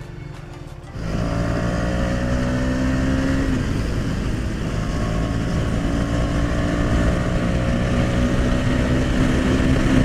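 Motorcycle engine running at a steady cruising pitch with wind rushing past, cutting in abruptly about a second in.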